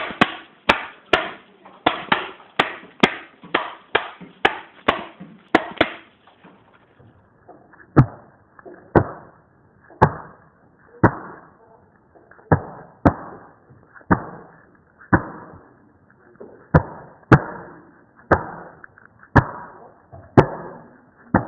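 Gift ribbon sound effect: a string of sharp snaps, each trailing off in a short scratchy tail. They come about two or three a second for the first six seconds, then slow to about one a second.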